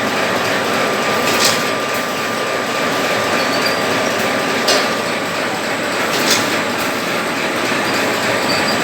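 Automatic paper-napkin packing machine running: a steady mechanical clatter with a faint steady whine, and three brief sharp high-pitched clicks.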